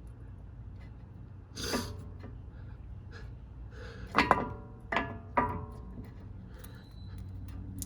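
Three sharp metallic taps, each ringing briefly, as a brake pad is worked into a brake caliper. They come in the middle, the last two close together, after a short rustling rush.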